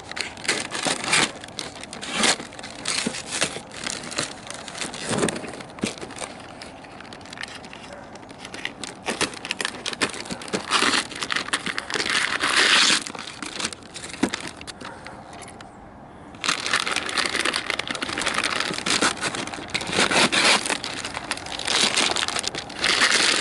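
A taped cardboard box and its paper wrapping being torn open by hand: repeated ripping, crinkling and crumpling of paper and cardboard, with a short lull about two-thirds of the way through.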